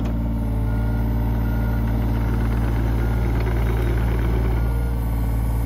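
John Deere 35G compact excavator's diesel engine running steadily at an even, low pitch.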